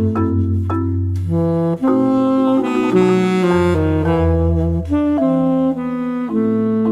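Instrumental jazz music: a saxophone plays a melody of held notes over a bass line.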